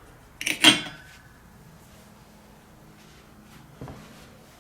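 Aluminum heat sinks clinking together as they are handled onto the pile: a quick cluster of metallic knocks about half a second in with a short ring after, then a faint knock near the end.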